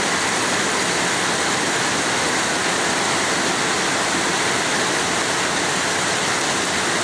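Heavy monsoon rain pouring onto dense tree foliage: a loud, steady, even hiss that does not let up.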